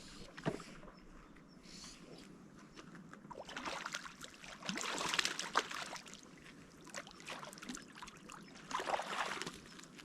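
Water splashing and sloshing in two bursts, a longer one starting about three and a half seconds in and a shorter one near the end.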